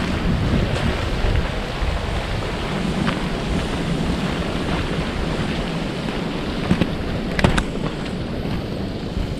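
Wind buffeting the microphone: a steady low rumbling rush, with a few sharp clicks about seven seconds in.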